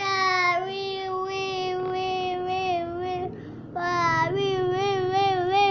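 A child's voice holding long sung notes: one steady note for about three seconds, a short break, then a second note that wavers up and down.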